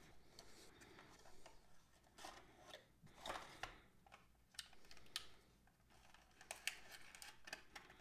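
Faint rustling and scattered light clicks of a cardboard box and its clear plastic insert being opened and handled.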